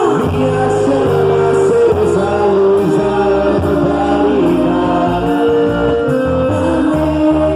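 Music with a sung vocal line, playing loud and steady: a song accompanying a quadrilha junina dance.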